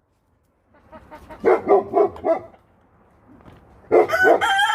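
Bantam chickens clucking in a short run of calls, then a rooster starting to crow near the end, going into one long held note.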